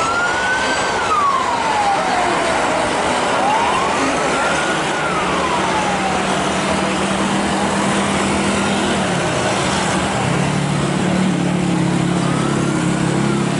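A wailing siren rising and falling in pitch about every four seconds, over a loud, steady rushing noise. A low, steady hum comes in about halfway through and grows stronger near the end.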